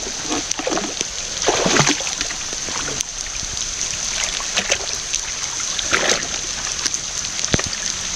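Splashing and sloshing in shallow tidal water as a hand and feet move through it while wild oysters are gathered from the mud, over a steady hiss of rain falling on the water. Two louder splashes stand out, about a second and a half in and again about six seconds in.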